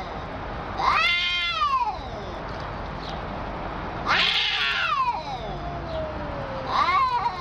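A cat yowling: three loud, drawn-out meows that rise and fall in pitch, about a second in, in the middle and near the end, with a quieter, lower wavering yowl running between them.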